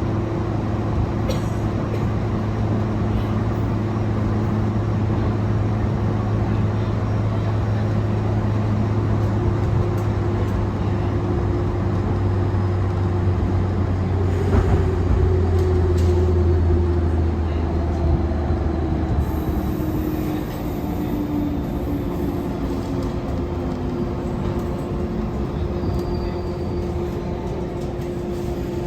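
JR 415 series 1500 electric multiple unit running, with steady motor hum and rolling rumble. A tone in the middle slides lower over several seconds and a deeper hum drops away.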